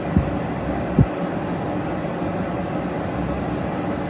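Steady low rumble of outdoor street traffic, with two brief low thumps in the first second.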